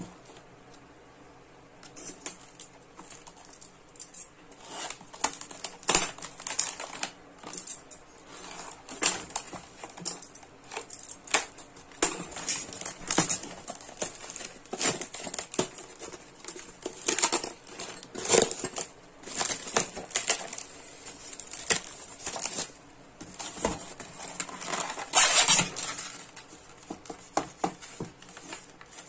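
Plastic wrap and a plastic packaging tray crinkling and crackling as they are handled and pulled open, with irregular clicks and knocks. The sound starts about two seconds in, and there is a louder rustle near the end.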